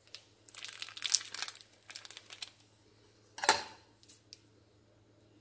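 Polythene bag full of batter crinkling as it is handled and twisted, in a run of crackles over about two seconds, then one sharper, louder crackle about three and a half seconds in.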